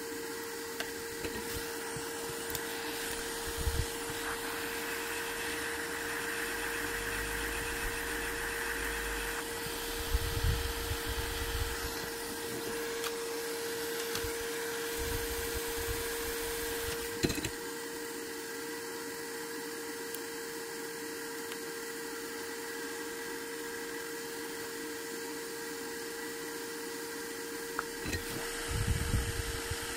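Steady hum and hiss of a small fan running, with one held tone, and a few soft knocks scattered through.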